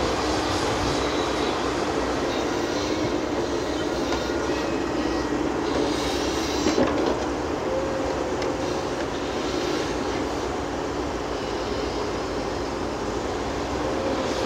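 Caterpillar 330F tracked excavator working: its diesel engine and hydraulics running under load as it tips a bucket of earth, swings and digs again, with knocks from the bucket striking the ground about halfway through.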